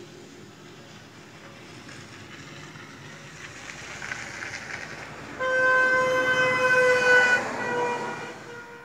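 A vehicle horn held for about three seconds, starting a little over halfway through. It is a steady, reedy note that drops slightly in pitch partway through and then fades, over the rising noise of passing traffic.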